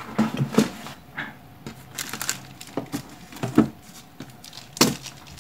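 Handling noise on a work surface: scattered light clicks and rustling as parts and tools are moved about, with one sharper click near the end.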